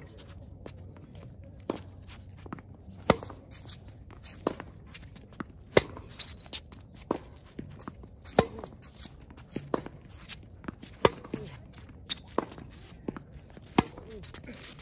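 Tennis rally: sharp pops of racket strings striking the ball, the loudest about every two and a half seconds, with fainter hits from across the court and ball bounces in between.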